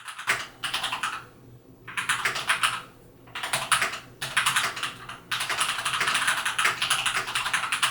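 Typing on a Machenike K600G full-size mechanical keyboard fitted with pre-lubed Gateron brown tactile switches: a dense rattle of key clacks in runs of a second or more, broken by short pauses.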